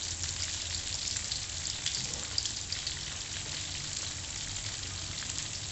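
Chopped garlic and whole spice seeds sizzling in hot oil in a stainless steel wok: a steady frying hiss with fine, quick crackles throughout.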